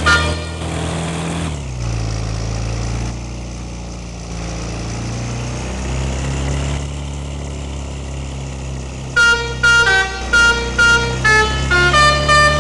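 A bus engine runs steadily with a low hum. From about nine seconds in, a telolet horn, a set of multi-tone air horns, plays a quick tune of short notes jumping between pitches.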